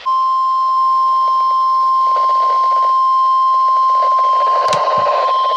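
NOAA Weather Radio warning alarm tone: a single steady, loud tone of about 1050 Hz that signals an urgent weather warning is about to be read, over faint radio static. Two brief low thumps come near the end.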